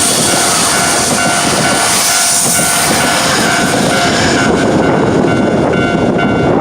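Nankai 8300 series electric train running past the level crossing at close range, a loud continuous rumble of wheels on rail with a high hiss. The crossing's warning bell keeps ringing through it, its steady repeating tones showing more clearly near the end as the train noise thins.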